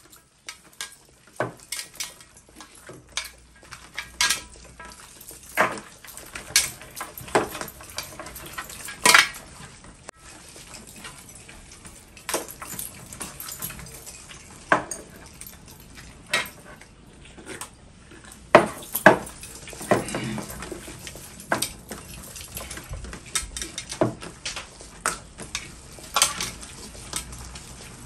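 Irregular clinks, clanks and scrapes of hands and metal rings against large stainless steel plates as rice is scooped up by hand, a few clanks much louder than the rest.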